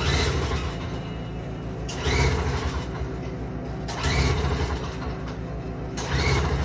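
Toro CCR2450 snowblower's 5 hp two-stroke engine running just after a carburettor cleaning, with louder surges about every two seconds.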